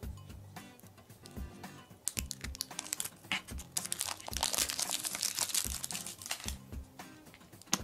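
A surprise egg's wrapper crinkling and tearing as it is peeled open, starting about two seconds in and busiest in the middle, over background music with a steady beat.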